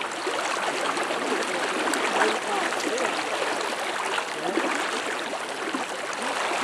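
Steady rush of high, fast-flowing river water.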